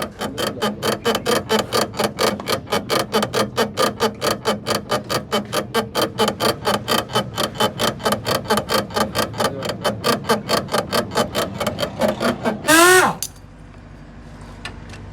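Rapid, even mechanical clicking, about four or five clicks a second, like a ratchet being worked in a car workshop. Near the end, a short loud burst of a pneumatic impact wrench spinning up and down, then a low hiss.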